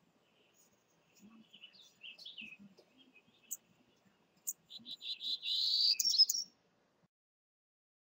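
Townsend's warbler singing: a few scattered high notes, then a louder fast run of notes that climbs slightly in pitch and stops suddenly.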